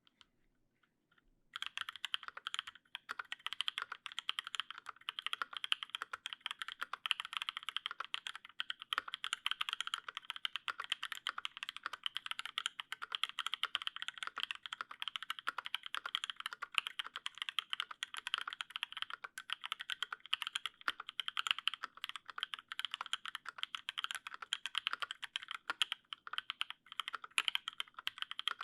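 Continuous fast typing on an LZ CLSm custom mechanical keyboard with lubed Paco switches, an aluminium plate and GMK keycaps. The keystrokes come in a dense, rapid stream that starts about a second and a half in and does not pause.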